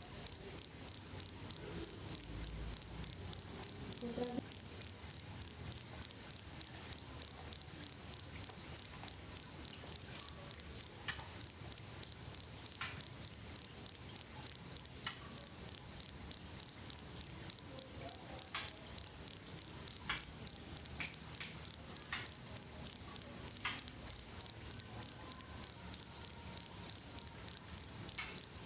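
Cricket (jangkrik) chirping in a steady, even rhythm of about four high-pitched chirps a second.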